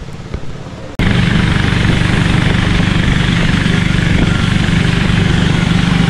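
Engine-driven wooden river boat's motor running steadily at speed, a loud drone that cuts in suddenly about a second in after a quieter stretch.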